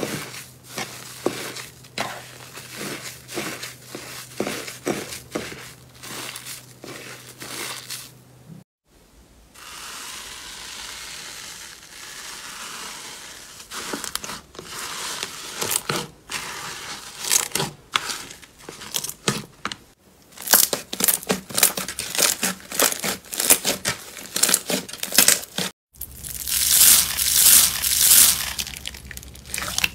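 Slime being squeezed and poked by hand, giving rapid runs of crackling clicks and pops. The sound breaks off and changes texture at cuts about 9, 20 and 26 seconds in, with a smoother, hissier squish between about 9 and 14 seconds.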